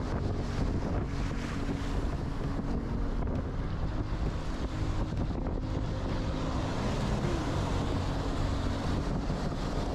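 Steady wind noise on the microphone, with waves breaking on the shore.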